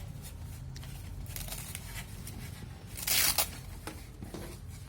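Velcro strap of a fabric anti-snoring chin band being pulled open, a short ripping sound about three seconds in, with a fainter rip and fabric rustling before it.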